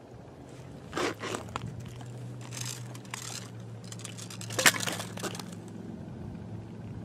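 Crunching and crackling as ice-fishing gear is handled at a hole in the ice. There are a few sharp cracks about a second in and a louder crack past the middle, over a faint steady low hum.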